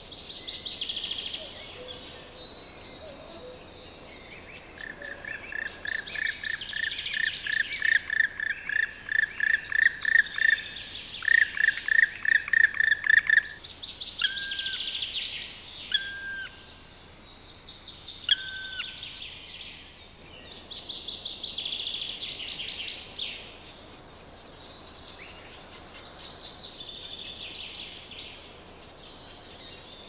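Black woodpecker calling: a long run of loud, ringing 'kwee-kwee-kwee' notes, about three a second, then three single drawn-out calls with a falling tail. Softer, higher-pitched chattering comes in bursts before and after.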